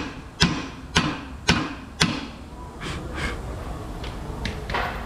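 Hammer tapping a new U-joint bearing cap into a steel driveshaft yoke: about five sharp metallic strikes, roughly two a second, then a few lighter knocks. The taps seat the cap so its needle bearings cannot fall out.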